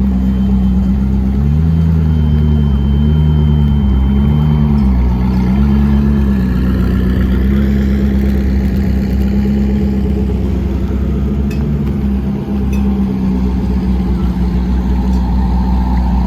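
Koenigsegg twin-turbo V8 running, its pitch stepping up and down a few times in the first six seconds, then holding steady.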